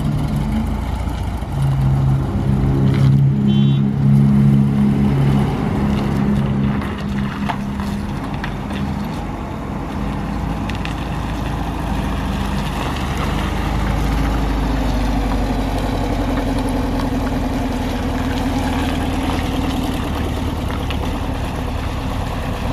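Volkswagen Kombi van's engine running as the van drives slowly past. Its pitch shifts in the first few seconds, then it settles into a steady drone.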